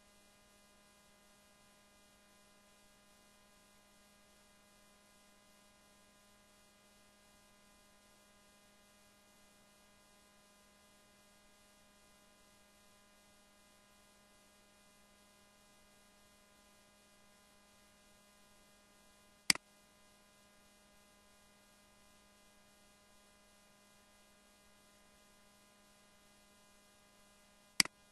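Faint steady electrical hum, broken twice by a sharp computer-mouse click, the second near the end.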